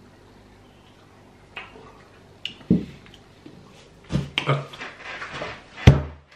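A beer glass set down on a table with a sharp knock, followed by a man's breathy, wordless noises of distaste after a sip of citrus beer, and a second, louder knock on the table near the end.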